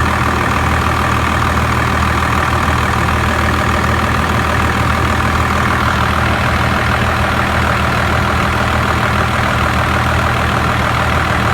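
Truck engine idling steadily with the air conditioning running on full, a constant low hum with a steady higher tone over it.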